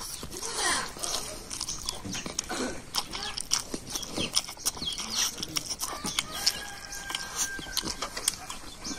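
Close-up eating sounds of a man eating rice and pork curry by hand: chewing and wet lip-smacking, with many quick sharp smacks and clicks. Short animal calls, likely chickens, are heard in the background.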